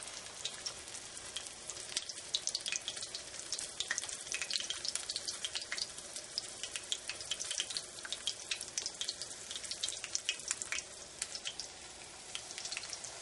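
Battered chicken breast frying in hot vegetable oil in a cast-iron skillet: a steady sizzle with many sharp crackles and pops.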